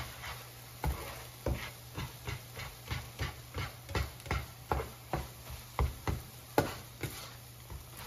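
Spatula scraping and tapping against a nonstick frying pan as scrambled eggs are stirred, about two to three strokes a second with an uneven rhythm.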